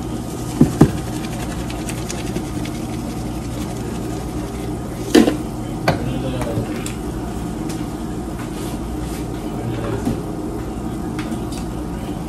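Stovetop cooking: food being stirred in a pot over a steady low hum, with sharp knocks of the spoon and seasoning bottle against the pot, two close together about half a second in and a louder one about five seconds in.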